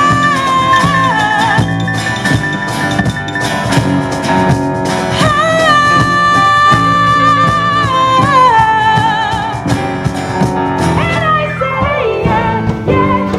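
Band music: a sung melody with long held notes that waver, one held for several seconds then sliding down, over drums and percussion.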